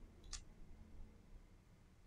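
Near silence with one short, sharp click about a third of a second in, from tweezers working on a smartphone display frame.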